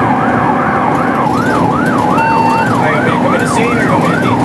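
Fire engine's siren in a fast yelp, sweeping up and down about three times a second, heard from inside the cab over the engine's steady drone and road noise. A short beep sounds about two seconds in.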